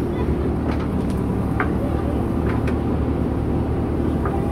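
JCB 3DX backhoe loader's four-cylinder diesel engine running steadily under load while the backhoe arm digs soil, with a few short sharp clicks and knocks.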